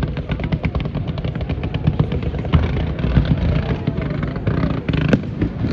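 Fireworks going off: dense, rapid crackling and popping over a low rumble of booms, with one sharper bang about five seconds in.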